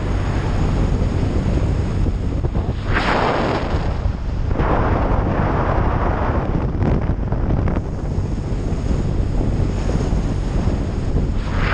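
Wind rushing over the microphone of a camera mounted on a moving motorcycle, loud and steady over a low drone from the engine and tyres. It swells into louder gusts of hiss about three seconds in, again around five to seven seconds, and near the end.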